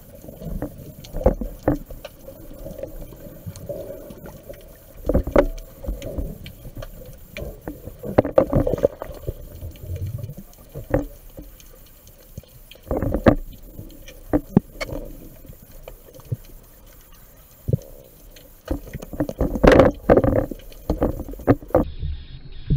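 Underwater sound through a waterproof action-camera housing: muffled water movement with irregular knocks and clicks as a freediver swims, louder near the end.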